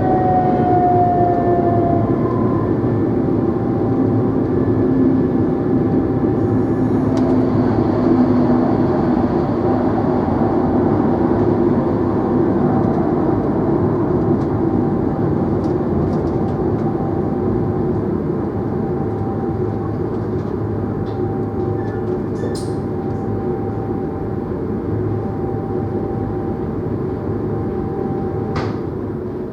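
NMBS/SNCB AM96 multiple unit running: a steady rumble with a motor whine that falls in pitch over the first couple of seconds and then holds. A few light clicks come in the second half, and the sound slowly fades near the end.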